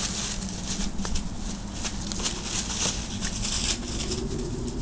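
Dry fallen leaves rustling and crunching underfoot in quick, irregular crackles, as puppies and a person move through leaf litter on grass.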